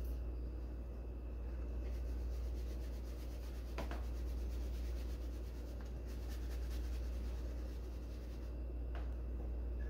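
Soft rubbing and handling sounds of hands on raw chicken tenders and a plastic tub of seasoned flour, with a light knock about four seconds in as the tub is lifted, over a steady low hum.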